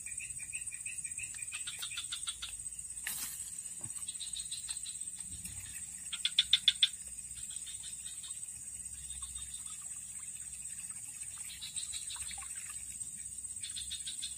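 Creekside chorus of calling frogs and insects: a steady high-pitched insect whine with repeated rapid trilling calls, the loudest about six seconds in. A single sharp click about three seconds in.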